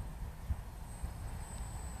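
Wind buffeting the microphone in gusty conditions: an uneven low rumble that swells and drops with the gusts.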